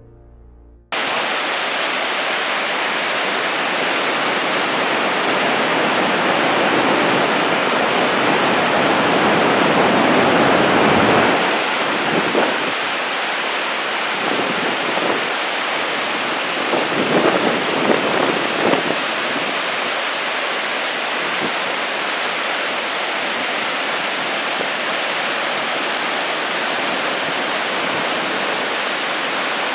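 Whitewater river rapids rushing steadily and loudly, starting abruptly about a second in, with a few brief uneven swells around the middle.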